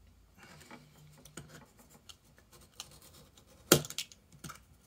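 Craft knife scoring a thin MDF piece along a steel rule with light strokes, faint and scratchy, with two sharp clicks near the end.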